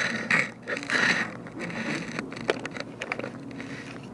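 Scraping and rustling of a player's gear and clothing against a wooden barricade, with two short louder swells near the start and scattered sharp clicks after.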